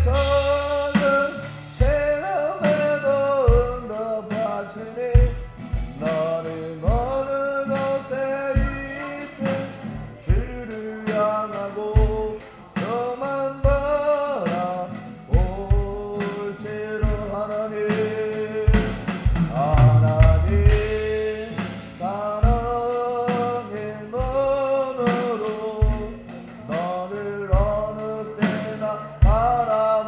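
A man singing while strumming an acoustic-electric guitar, with a boy keeping a steady beat on an electronic drum kit.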